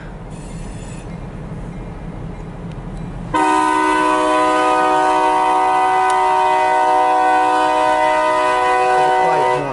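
Diesel locomotive rumbling at a road crossing, then about three seconds in its air horn sounds one long steady chord of about six seconds.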